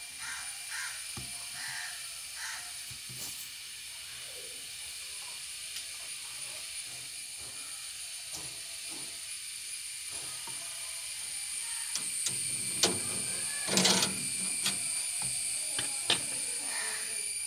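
Steady high hiss with a few faint clicks, and a short louder rustle about fourteen seconds in.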